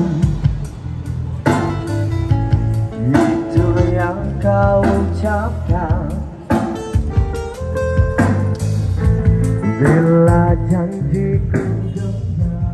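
A song with a singing voice over guitar and a steady bass line, played loud.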